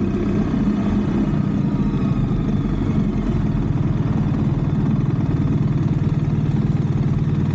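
BMW R1300GS Adventure's boxer-twin engine running steadily while riding, with a low, even hum that cuts off suddenly at the end.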